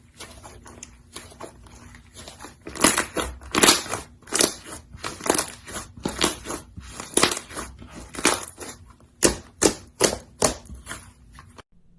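Hands squeezing and pressing slime, making a run of sharp, crackly squishes about twice a second after a quieter start; the sound cuts off suddenly near the end.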